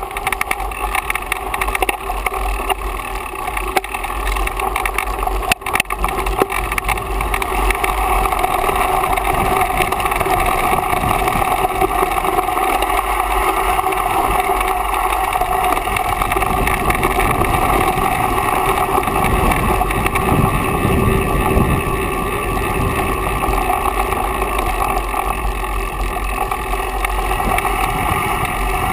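Riding noise from a mountain bike descending dirt singletrack: wind on the camera microphone and the bike rattling and its tyres rolling over dirt, with a steady whirring underneath. It grows rougher and deeper in the middle, around two-thirds of the way through.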